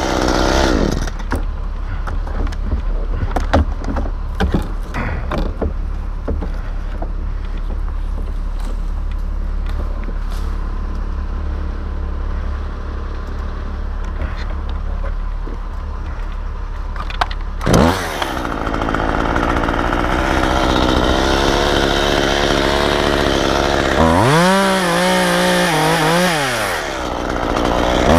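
Chainsaw idling with scattered clicks and knocks, a sharp crack a little past halfway, then the saw cutting at high revs and revving up and down near the end.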